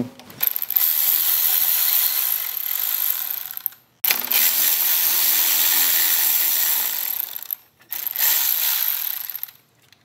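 Cordless electric ratchet with a Torx 40 bit running as it spins out a motorcycle fairing frame bolt. It runs in three spells: two of about three and a half seconds each, broken by a short stop about four seconds in, then a shorter one near the end.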